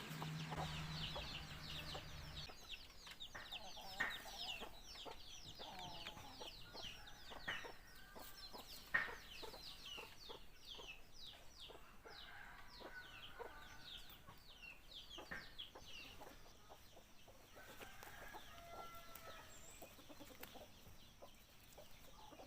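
Faint fowl sounds: soft clucking calls over a steady run of quick, high chirps, with a few sharp knocks.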